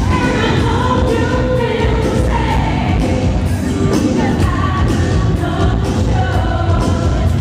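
Freestyle pop music played live: a singing voice over a heavy, steady bass beat and synth backing.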